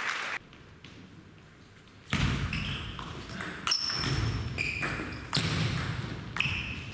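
Table tennis rally: the ball pinging off rackets and the table in a run of sharp ringing clicks, echoing in a large hall. It is fairly quiet for the first two seconds before the hits start.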